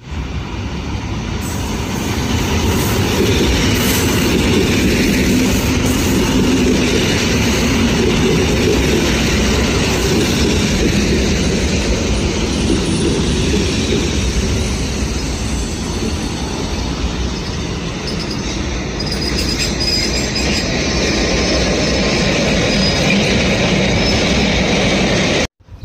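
A pair of EN57 electric multiple units running along a station platform, wheels on the rails, growing loud within the first few seconds as the train draws level and easing later on. Faint high squeals come in about two-thirds of the way through.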